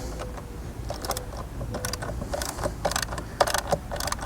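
Socket ratchet clicking in short irregular runs as a fender bolt is backed out.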